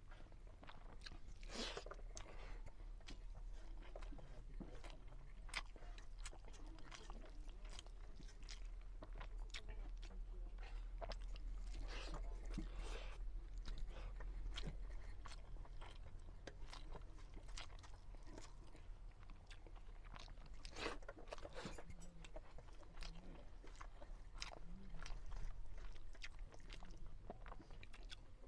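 Close-up sound of a man eating rice and cluster-bean curry by hand: steady chewing with many small wet mouth clicks, and his fingers working the food on a steel plate.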